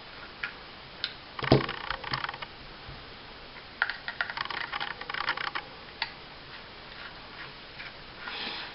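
Small screwdriver working the grip screws out of a handgun frame: a scatter of short metal clicks and light scrapes in a few bursts with pauses between.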